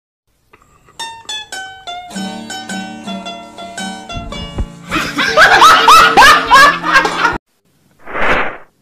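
A meme sound clip: a short plucked-string tune with a bass line, then a loud woman's laugh over the music. The laugh cuts off abruptly, and a brief whooshing burst follows near the end.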